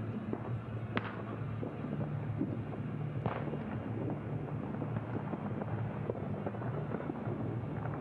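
Distant fireworks going off as scattered pops and bangs, the two loudest about one second and three seconds in, over a steady low rumble.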